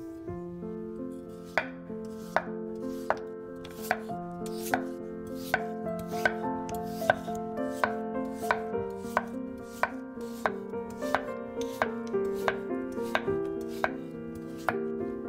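Chef's knife slicing onion and then peeled potato into thin rounds on a wooden cutting board: steady sharp knocks of the blade on the wood, a little more than one a second.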